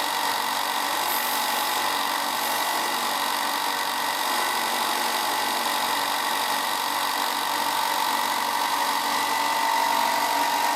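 Ryobi 4 x 36 in. belt and 6 in. disc benchtop sander running steadily, its motor giving a steady hum with a whine over it, while the edge of a wood circle is sanded round against the spinning disc.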